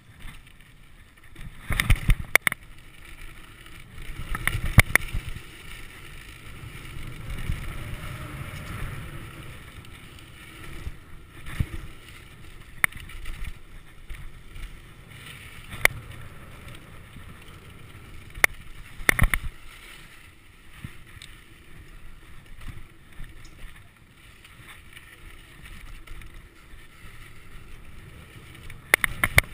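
Mountain bike descending a loose dirt trail: a steady rush of tyres on dirt and wind on the microphone, broken by several sharp knocks and rattles as the bike hits bumps.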